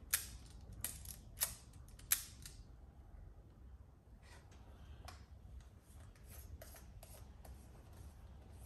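Small mechanical clicks from handling a Yashica Electro 35 MC compact 35mm camera and working its controls. There are four sharp clicks in the first two seconds or so, then fainter, scattered clicks.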